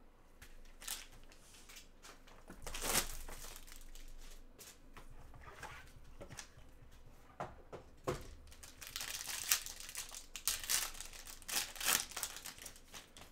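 A trading-card box being opened and handled, then a foil card pack crinkling and being torn open. The rustles and crackles come in irregular bursts and are loudest about three seconds in and again in the second half.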